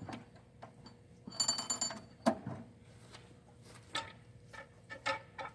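Metal clinks and knocks from handling the band sawmill as it is unlatched and moved back into position: a short cluster of ringing clinks, then a sharper knock about two seconds in, and scattered clicks later.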